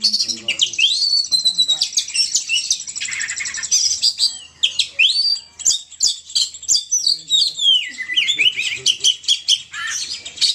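Burung poci songbird lure call: a fast, unbroken stream of high chirps, quick whistled slurs and twitters, many notes overlapping.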